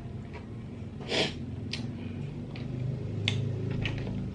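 Mouth sounds of eating spicy garlic-butter sea snails: a short, sharp breath about a second in and a few small clicks, over a low steady hum.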